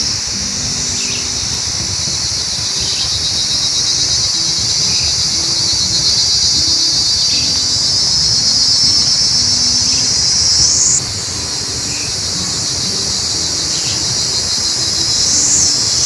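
A loud, steady, high-pitched drone of insects calling in chorus, which drops suddenly in level about eleven seconds in. A soft, low melody runs underneath.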